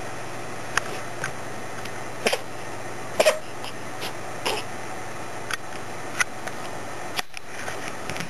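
Steady background hiss with about ten short, scattered clicks and taps.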